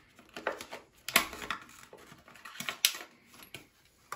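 Clear plastic blister packaging crackling and clicking in the hands as it is opened and a brass ceramic-disc tap spindle is taken out. The crackles come irregularly, loudest about a second in and again just before three seconds.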